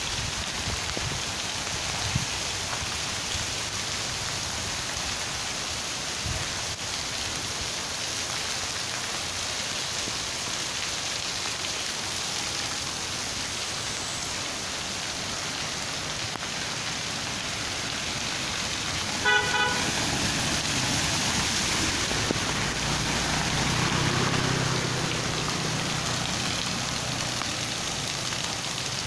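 Heavy rain falling steadily on a flooded street. About two-thirds of the way through, a short horn toot, then a vehicle's engine passes, louder for a few seconds before fading.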